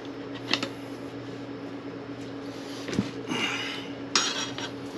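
A steel tyre lever clicking and scraping against a motorcycle wheel rim as a new tyre bead is levered on, with sharp clicks about half a second and three seconds in and a longer scrape near four seconds. A fan hums steadily underneath.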